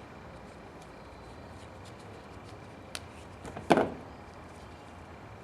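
Small parts and tools being handled on a workbench: a few faint clicks, a sharp click about three seconds in, then a louder single clack just before four seconds, like a hard part or tool being set down.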